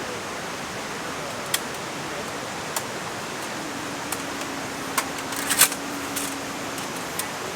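Steady rush of a mountain stream with scattered light clicks and taps, about seven in all, the loudest few together about five and a half seconds in. A faint steady low hum runs through the middle few seconds.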